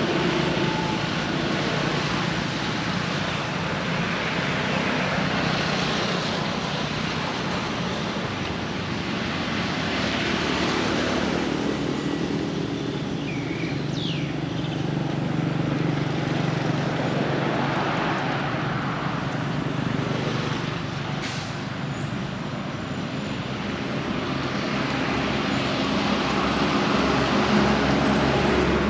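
Road traffic passing: vehicle engines and tyre noise swelling and fading as they go by, over a steady low hum. A faint bird chirp comes through about halfway in.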